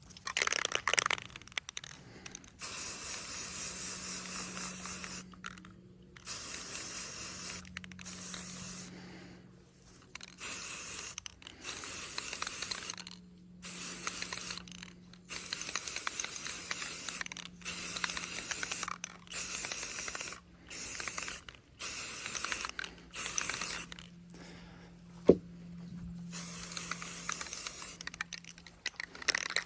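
Aerosol spray-paint can sprayed in repeated hissing bursts of one to two seconds each with short pauses between, as a final coat is laid on a rifle. A single sharp tap about three-quarters of the way through.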